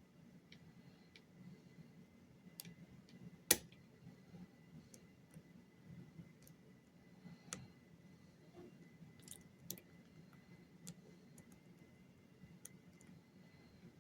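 Faint, irregular small clicks and ticks of a lock pick and tension wrench working the pins inside a lock, with one sharper click about three and a half seconds in.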